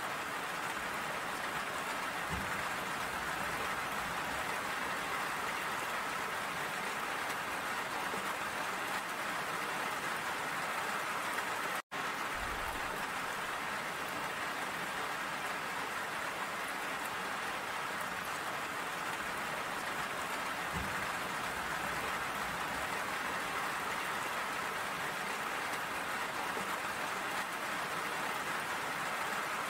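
Steady rain falling, a dense even hiss of drops. It cuts out for an instant about twelve seconds in, then carries on unchanged.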